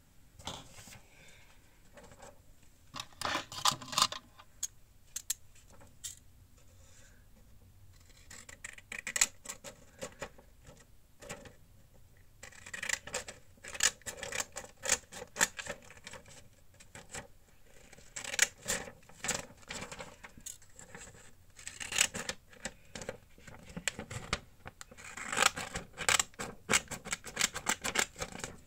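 Paper being worked by hand: runs of quick scratchy strokes and crisp paper crackles, each run lasting a second or three, with short pauses between.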